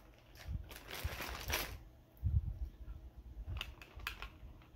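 Makeup brushes clicking and knocking as a hand rummages through them: an irregular scatter of light clicks with a few dull thumps.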